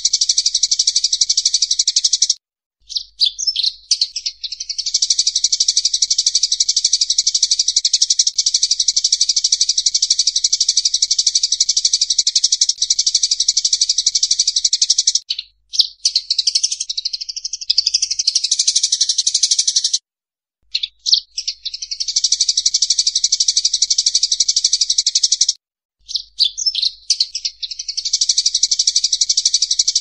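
Sparrows fighting: a dense, fast, unbroken chattering, broken by a few short gaps of under a second.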